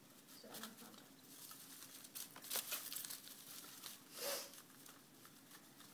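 Pet mice moving about in shredded-newspaper bedding in a plastic tub: faint, irregular paper rustling and crinkling with scattered light ticks, and two louder rustles about two and a half and four seconds in.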